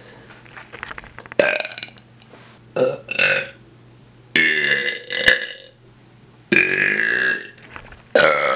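A series of loud, deliberate belches from a male, one after another: short ones first, then two long drawn-out burps of about a second each, and another starting near the end.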